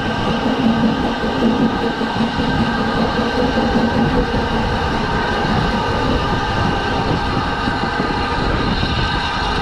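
Narrow-gauge steam locomotive standing at the platform, letting off a steady hiss of steam with several held tones in it over a low rumble.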